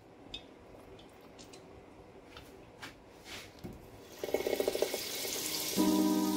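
Butter sizzling as it melts in hot olive oil in a nonstick frying pan: faint scattered ticks at first, then a hissing sizzle that builds from about four seconds in.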